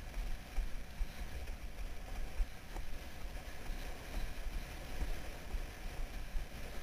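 Wind buffeting the camera microphone in an uneven low rumble, over the hiss and slap of a windsurf speed board skimming across choppy water.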